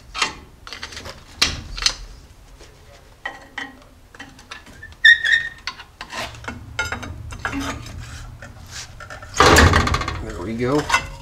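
Hand tools working a rusty disc-brake caliper off its bracket: a screwdriver prying and scraping metal on metal with scattered clicks and knocks. About five seconds in there is a sharp metallic clank that rings briefly. Near the end comes a louder run of rapid metallic knocking and rattling.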